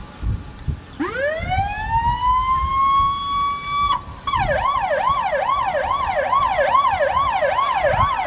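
Emergency vehicle siren: a wail that winds up from low pitch and holds high for about three seconds, stops, then switches to fast up-and-down sweeps, about two and a half a second.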